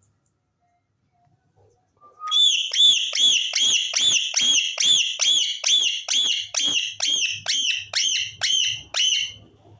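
A pet parrot whistling a rapid run of about seventeen short, high notes, each rising then falling, about two and a half a second. The run starts about two seconds in.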